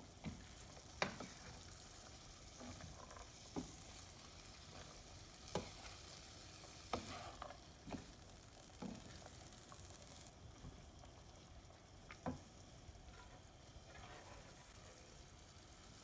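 Pork, red curry paste and long beans frying faintly in a pan as they are stir-fried, with a sharp knock of the spatula against the pan now and then.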